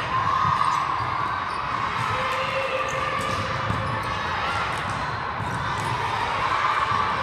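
Volleyballs being struck and bouncing on a hardwood gym floor, with players' chatter echoing in a large hall.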